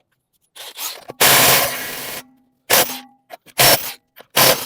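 Impact wrench undoing wheel nuts in bursts: one long burst, then three short ones.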